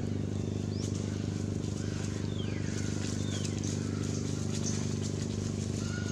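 A steady low hum with a few faint, high, falling chirps over it.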